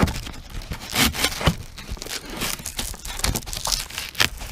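Hands working a part into place: irregular crinkling, scraping and sharp clicks, several of them, as material is pressed and clamped.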